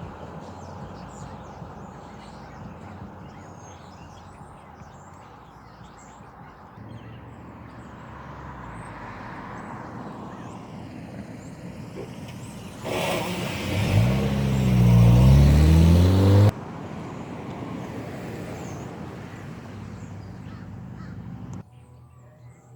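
Outdoor road traffic noise. Past the middle, a vehicle engine gets much louder and rises in pitch as it accelerates, then cuts off abruptly.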